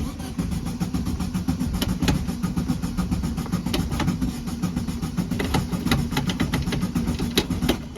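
Volkswagen Beetle's air-cooled flat-four engine cranking on the starter motor with an even, rhythmic churn, but never catching. It sounds like the engine is getting no spark.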